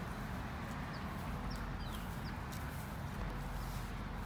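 Outdoor ambience at a park pond: a steady low rumble, with faint short high bird chirps and light ticks scattered through it.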